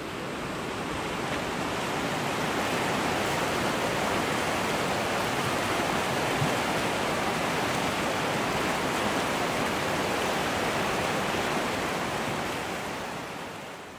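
Fast river rushing over rapids, a steady wash of water noise that fades in at the start and fades out at the end.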